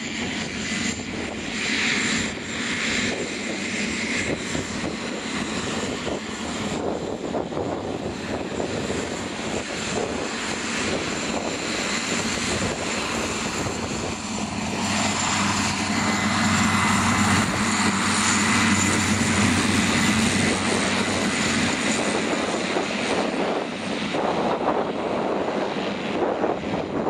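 Cessna 208B Grand Caravan's PT6A turboprop engine and propeller running as the aircraft taxis on grass. It is a steady drone with a thin high whine, and grows louder about halfway through.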